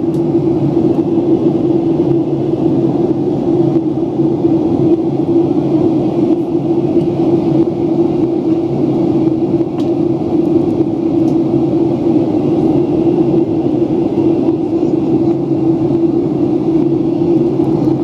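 Jet airliner cabin noise in flight: a steady rumble of engines and airflow with a constant low hum.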